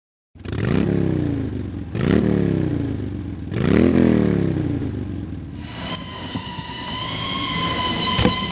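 Motorcycle engine revved three times, each rev climbing quickly and falling back, then settling to a lower steady run. A steady high whine comes in about six seconds in.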